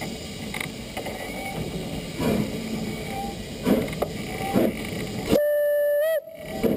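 Narrow-gauge steam locomotive pulling away, with a few separate exhaust chuffs, then a short steady blast on its steam whistle about five and a half seconds in, the loudest sound, bending slightly in pitch as it ends.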